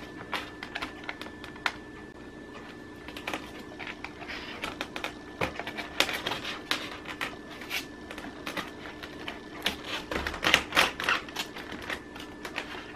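Irregular light clicking and ticking of N-gauge model track worked by hand, as metal rails are slid and pressed through the plastic sleepers of flexible track into a Unitrack section.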